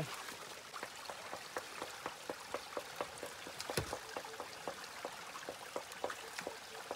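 Small stream trickling over stones, with irregular water drips and plinks several times a second, and one sharper knock a little before four seconds in.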